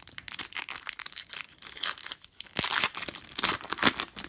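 Foil wrapper of a Donruss Optic basketball card pack being torn open and crinkled in the hands: a run of irregular crackles, loudest in the second half.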